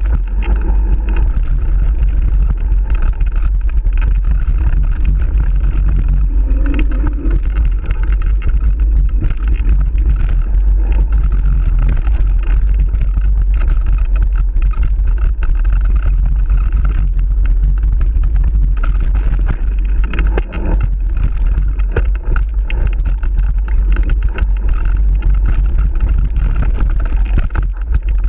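Loud, steady wind rumble on a camera microphone riding along on a mountain bike, mixed with the rattle and small knocks of the bike over the bumpy dirt trail.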